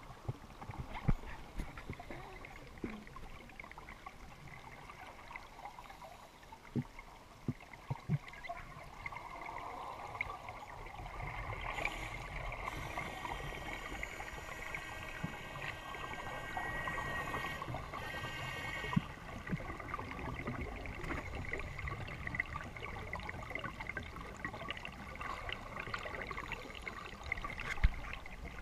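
Water running and trickling steadily, louder for several seconds around the middle, with a few sharp knocks scattered through.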